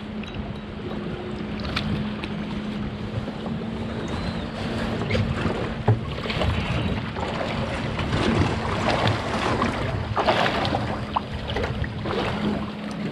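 Wind buffeting the microphone and water lapping at a small boat's hull over a steady low hum. About ten seconds in, a few louder splashes as a hooked fish is brought up at the surface beside the boat.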